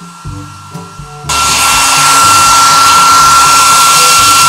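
Background music, then about a second in a small handheld hair dryer cuts in loudly, a steady rush of air with a high whine, blowing on a wet toy poodle's coat.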